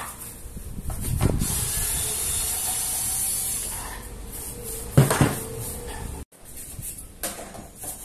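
Cordless screwdriver running for about two and a half seconds as it backs out a screw, then a single sharp clunk about five seconds in.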